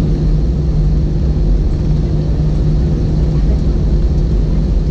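Cabin noise of an Airbus A321 taxiing: a steady low rumble with a constant engine hum.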